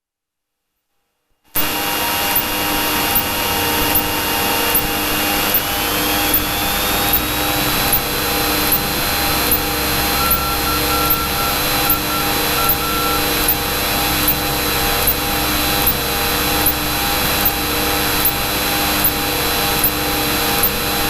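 Cessna's piston engine and propeller droning steadily at cruise power, heard inside the cockpit, with a faint click repeating a little more than once a second. It sets in after about a second and a half of silence.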